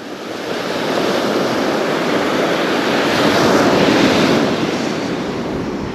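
Ocean surf: a wave breaking and washing up the beach, swelling to a peak about halfway through and then dying away.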